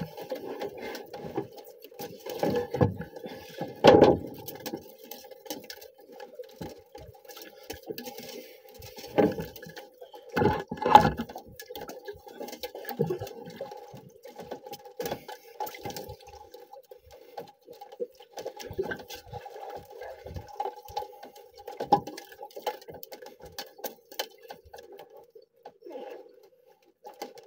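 Fishing line being worked by hand over the side of a small outrigger boat: scattered knocks and thuds against the hull, the loudest about four seconds in and again around eleven seconds, with water sloshing and a faint steady hum throughout.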